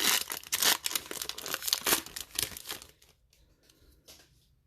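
Foil booster pack wrapper crinkling and tearing as it is opened by hand; the crackling stops about three seconds in, leaving a few faint rustles.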